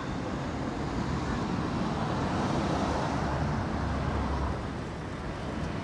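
Street traffic noise: a steady rumble that swells as a vehicle passes around the middle, then eases off.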